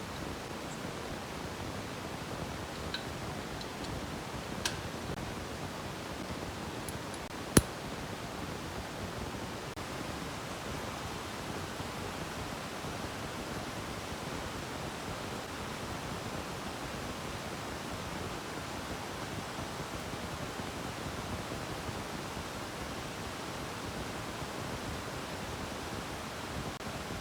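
Steady even hiss with no engine or tool sound in it, broken by a sharp click about seven and a half seconds in and a fainter click a few seconds before.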